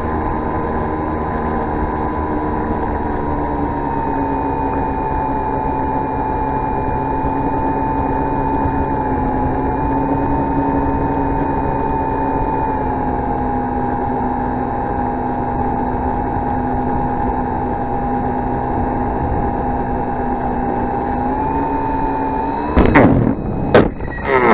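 Electric motor and spinning propeller of an RC foam motor glider running steadily, heard from on board with the pitch drifting slightly, slowed to half speed. Near the end a mid-air collision with a second model plane gives a few loud knocks and cracks in quick succession.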